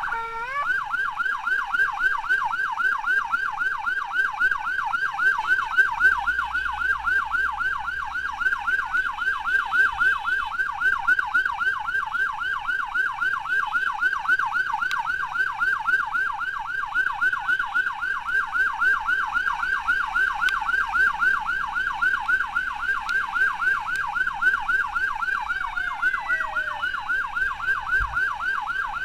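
Ambulance siren in fast yelp mode: a steady, unbroken up-and-down wail sweeping several times a second.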